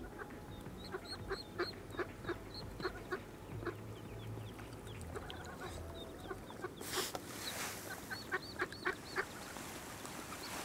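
Ducks and geese calling in short, irregular calls, with small birds chirping higher up and a brief rush of noise about seven seconds in.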